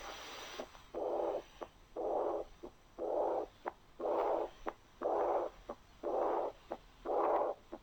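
Recorded heart sounds through a stethoscope diaphragm over the aortic area. A long murmur fills each beat, seven times at about one a second, with short sharp heart sounds between. This is the murmur of a severe aortic valve lesion.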